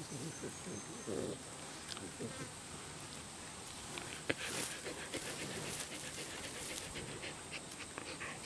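A rough collie eating treats close to the microphone: soft chewing and mouth sounds with scattered small crunchy clicks, over a steady high insect buzz.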